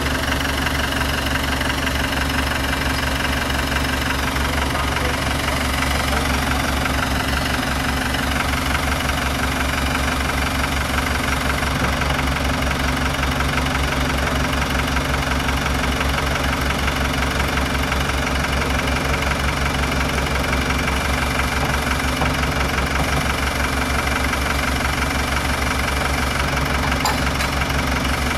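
Modified off-road 4x4's engine idling steadily, with an even low pulse.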